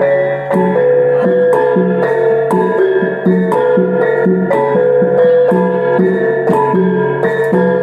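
Iban brass gong ensemble playing: a row of small tuned bossed gongs strikes a fast, ringing melody over a regular low beat from deeper gongs.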